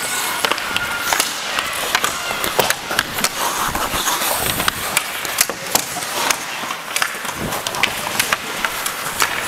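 Ice hockey skates scraping and carving over the ice, close up, with frequent sharp clacks of hockey sticks striking the ice and puck.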